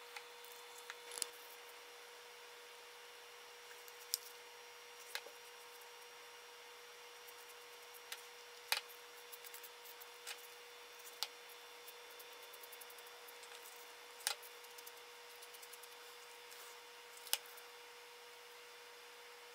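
Sparse small clicks and taps, about a dozen at irregular intervals, from hands handling small tools and parts on a tabletop, over a faint steady hum.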